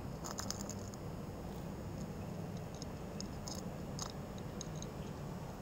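Cat eating dry kibble from a ceramic bowl: small irregular clicks and crunches of chewing, coming in little clusters.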